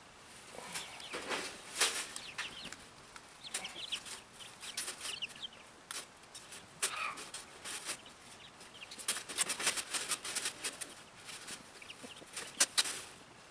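Silkie chickens clucking and chirping in short calls, mixed with frequent sharp clicks and rattles of baling wire being uncoiled and worked with pliers; the clicks come thickest in a run past the middle and the loudest near the end.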